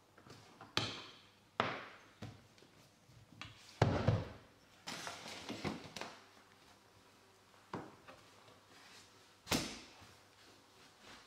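Hardwood floorboards being handled and fitted together on underlay: a series of sharp wooden knocks and clacks, the loudest with a dull thump about four seconds in, with some scraping of board on board in between.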